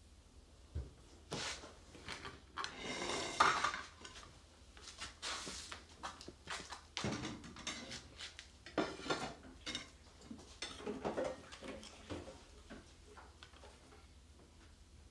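Household handling sounds in a small room: rustling, a few knocks and clinks of crockery and cutlery, in a string of short bursts that fade out near the end.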